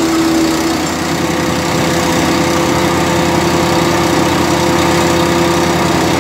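GeoTech PCS 150L chipper shredder's 15 HP Loncin four-stroke petrol engine running steadily at speed while branches are fed through it and chipped.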